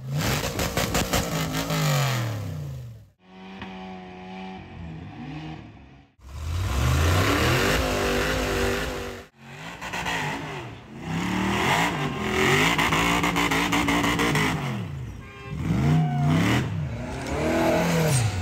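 Rock-crawler buggy engines revving hard, their pitch climbing and dropping again and again as they work up the boulders. The sound breaks off suddenly several times between short clips.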